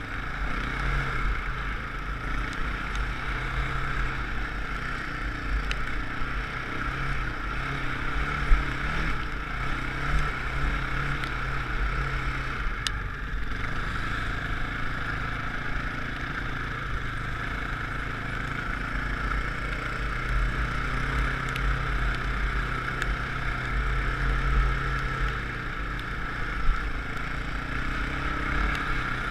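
Dirt bike engine running steadily as the bike rides along a sandy trail, heard from a helmet-mounted camera with wind buffeting the microphone. A few sharp knocks cut through, the clearest about eight and a half seconds in.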